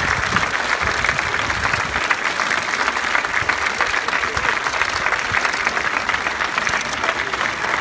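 A large crowd applauding steadily, a dense sound of many hands clapping.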